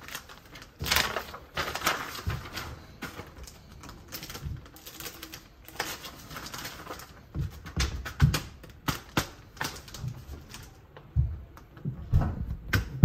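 Clear plastic sheet protectors crinkling and paper pages rustling as recipe pages are slid into sleeves and turned in a ring binder, with many sharp clicks and light knocks against the counter that come more often near the end.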